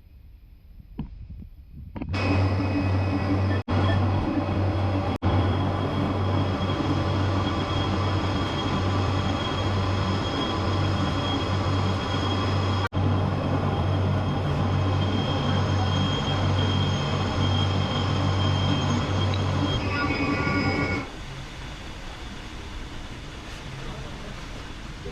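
Power sander running steadily on body filler (putty) on a car panel, with a low hum and a few very short breaks. It stops about three-quarters of the way through, leaving fainter background noise.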